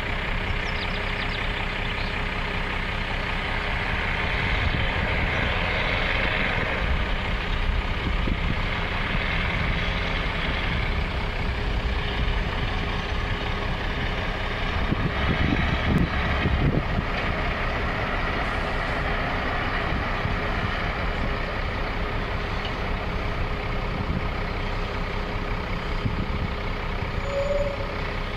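Wheel loader's diesel engine running steadily close by, with a louder low rumble for a couple of seconds about halfway through.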